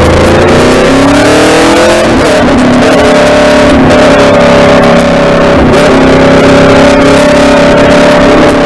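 Aprilia Tuono V4 motorcycle's V4 engine pulling under throttle, its pitch rising for about two seconds, dipping briefly, then holding steady while cruising, with another short dip near the end.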